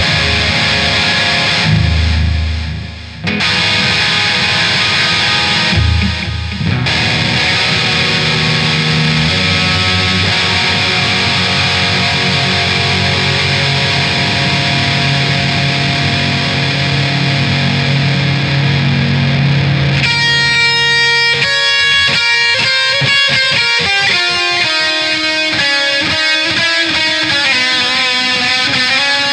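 Instrumental heavy metal with distorted electric guitar. Brief breaks come about two and six seconds in. About twenty seconds in, the dense sustained sound gives way to a run of clearly separate picked guitar notes.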